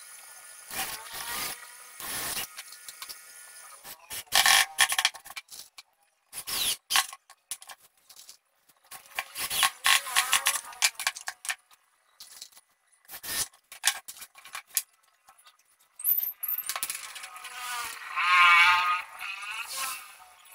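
Cordless drill-driver running as it drives screws into plywood at the start and again near the end, its pitch wavering under load, with clicks, knocks and metallic clinks of plywood panels and screws being handled in between.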